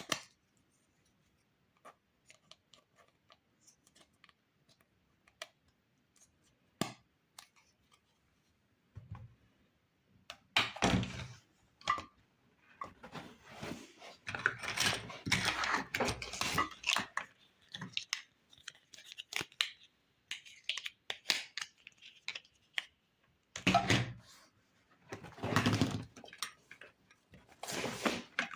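Toy kitchen set pieces and packaging being handled: light scattered clicks and taps, then spells of rustling and knocking, twice, in the second half.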